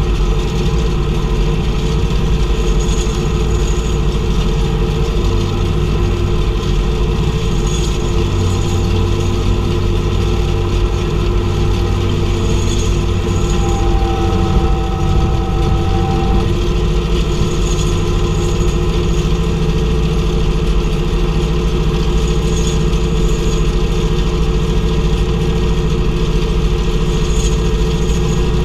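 Tractor engine running steadily while pulling a round baler through hay, with the baler's machinery going behind it. A faint high click repeats about every five seconds.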